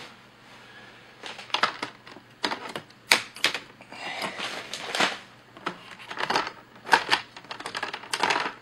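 Plastic front bezel of a laptop screen being pressed onto the lid and snapping into place: a string of irregular sharp clicks and snaps, starting about a second in.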